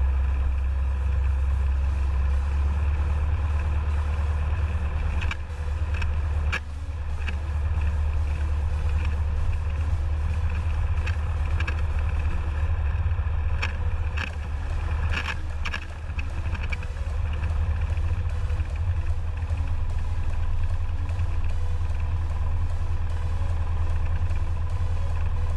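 Cessna 172's piston engine running steadily, a deep drone heard inside the cockpit, with a few short clicks partway through.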